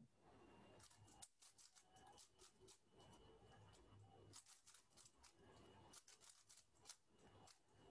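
Faint, rapid, irregular clicking and rattling of a 3x3 Rubik's cube's plastic layers being turned during a speedsolve.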